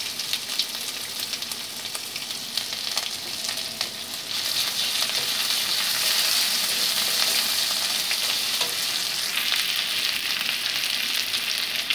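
Ginger paste and whole spices sizzling in hot mustard oil in a metal kadai, stirred with a flat metal spatula. The sizzle steps up and grows louder about four seconds in.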